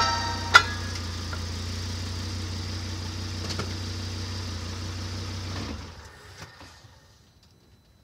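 A vehicle's engine idling steadily, heard from underneath by the driveshaft, with one sharp knock about half a second in. The idle dies away about six seconds in as the engine is shut off, leaving a few faint clicks.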